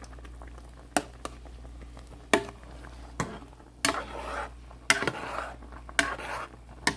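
A utensil clinking against a cooking pot while soup is stirred, a sharp clink about once a second with some scraping and sloshing between.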